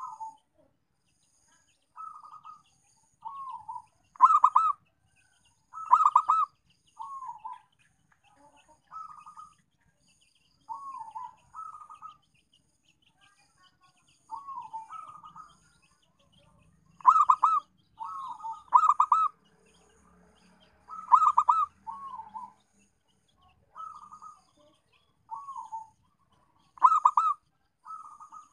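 Zebra dove (perkutut) cooing: short rolling coo phrases every second or two, some soft with a falling note, others much louder and stuttering.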